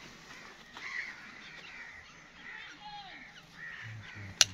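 Crows cawing repeatedly, with a single sharp snap of steel hoof nippers near the end.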